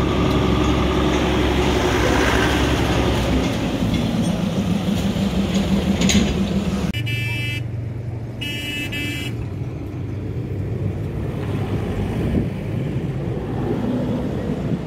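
Street traffic with vehicle engines running, a pitch rising slightly partway through. A horn honks twice, two short blasts about halfway through.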